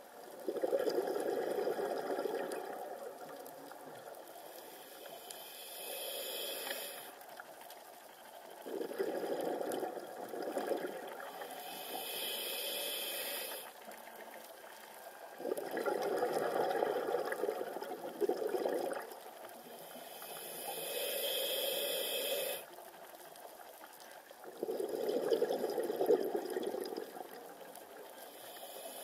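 Scuba diver breathing through a regulator underwater: a hissing inhale through the regulator, then a longer rush of exhaled bubbles, about four slow breaths, one every seven or eight seconds.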